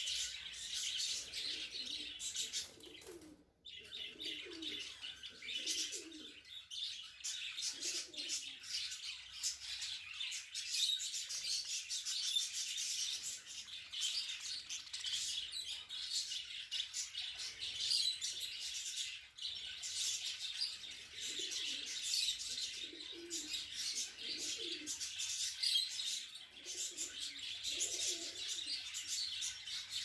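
A group of budgerigars chirping and chattering without pause, a dense high twittering. Lower calls come in short spells now and then.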